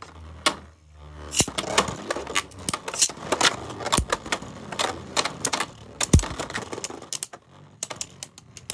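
Beyblade spinning tops clashing against each other: a rapid, irregular clatter of sharp clicks and hard knocks.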